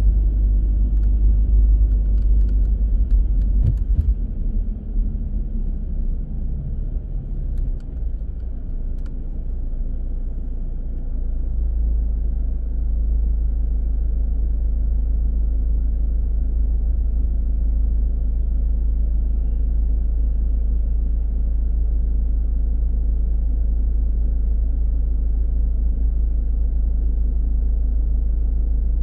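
Low rumble of a car driving, engine and tyre noise. It is uneven for the first ten seconds or so, then settles to a steady drone.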